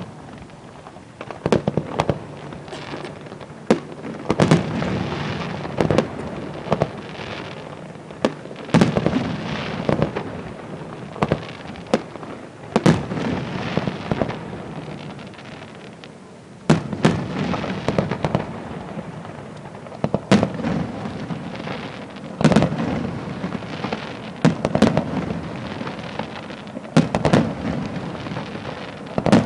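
Aerial firework shells bursting in quick volleys: repeated sharp bangs with crackling and rumble between them. There is a short lull about halfway through before a heavier run of bursts.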